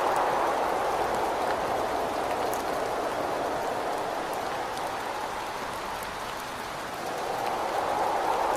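Steady rain with gusting wind: a dense hiss that eases off through the middle and swells again near the end, with scattered drop ticks on top.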